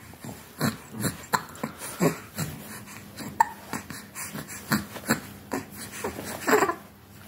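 A young child with hiccups making a quick string of short, sudden noises, hiccups mixed with little breaths and vocal sounds, about two a second, the loudest near the end.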